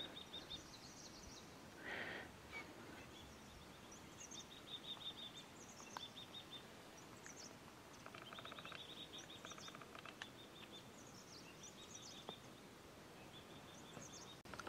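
Faint birdsong: many short high chirps and rapid trills, some calls repeated over and over, against a quiet background hiss.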